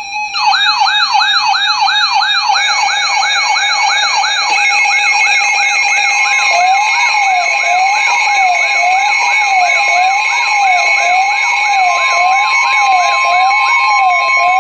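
Weather radio alert alarm for a severe thunderstorm warning. Electronic siren-like tones start suddenly: a fast warble of about three rising whoops a second over steady high tones. About six seconds in, a slower up-and-down wail and a steady tone join, and the layers sound together until the end.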